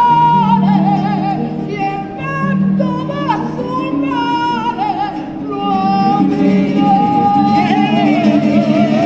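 A choir singing a flamenco-style Christmas song, with a vibrato melody line over two Spanish guitars.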